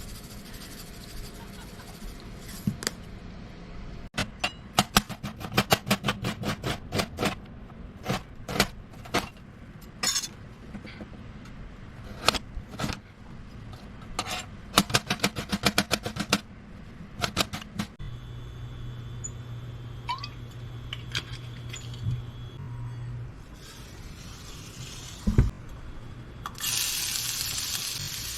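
Kitchen work: runs of quick, sharp taps and clatters of utensils, then a steady low hum for a few seconds. Near the end, food starts frying with a sizzling hiss.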